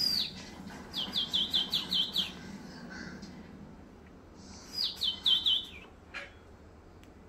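Small bird chirping: short, high, falling chirps, with a quick run of about seven about a second in and a shorter run of about four a little past the middle.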